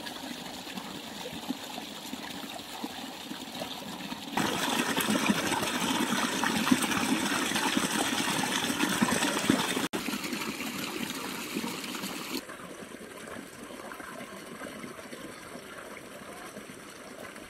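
Small forest brook rushing and splashing over a little drop through grass, loud for about eight seconds in the middle, with a quieter, steadier rush of water before and after.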